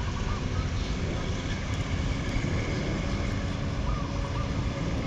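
Diesel train running with a steady low rumble, and a couple of faint bird calls over it.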